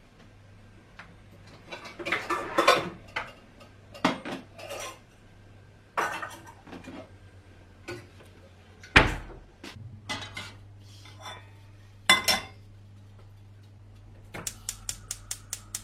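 Saucepans and kitchenware clattering as they are handled and set down, in separate knocks with one heavy knock about nine seconds in. Near the end comes a quick run of about ten even clicks.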